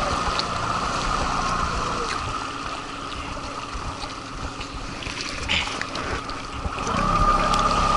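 Small outboard motor driving an inflatable boat, easing to a lower speed about three seconds in and picking back up near the end, with water trickling along the hull.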